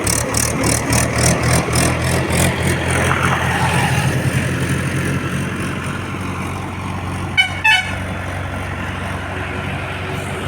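Heavy diesel engine running steadily under tow load, with two short horn toots about seven seconds in.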